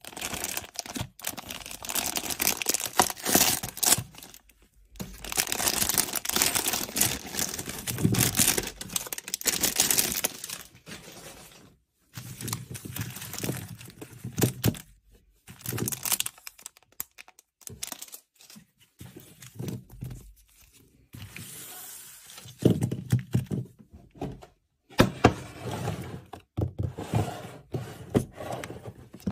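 Plastic packaging crinkling and tearing as a bag of modelling clay and its small sealed clay packets are opened, in bursts of a few seconds with short pauses. Near the end come sharper clicks and knocks from a plastic food container's clip lid being handled.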